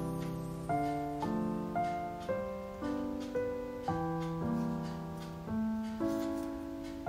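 Soft background piano music, a new chord or note struck about every half second and fading away between strikes.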